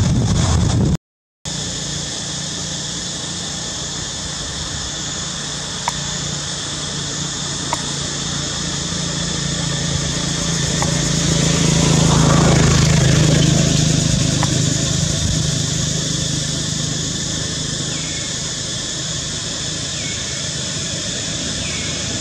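Forest ambience: a steady high-pitched drone of insects under a low engine hum. The hum swells to its loudest about halfway through as a motor vehicle passes, then fades. The sound cuts out briefly about a second in.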